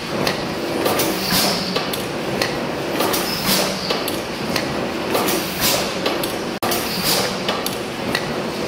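1914 Richard Hornsby twin-cylinder gas engine running, with a clank from its valve gear about once a second over the steady running noise.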